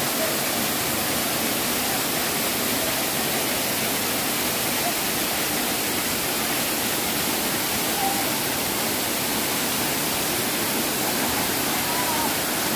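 Waterfall pouring onto rock: a steady, unbroken rush of falling water.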